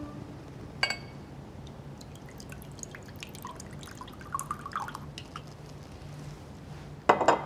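A drink being poured at a bar. A glass clinks with a short ring about a second in, then a few light taps. Liquid trickles and drips into a glass a little past the middle, and a louder clatter of glassware comes near the end.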